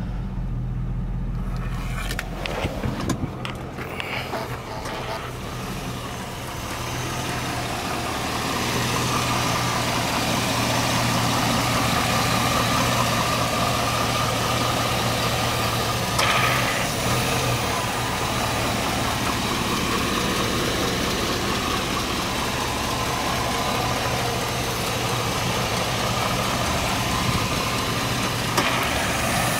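A GMC Yukon Denali's 6.0-litre LQ4 Vortec V8 idling steadily, with a few clicks and knocks in the first few seconds. It is heard first from inside the cab, then up close at the open hood, where it sounds brighter and fuller.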